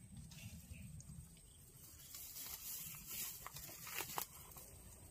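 Faint rustling and crackling of leaves and twigs being handled, with a few sharp snaps or clicks around three and four seconds in.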